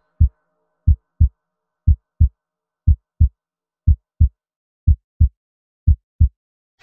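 Heartbeat sound effect: a slow lub-dub double thump about once a second, seven beats in all.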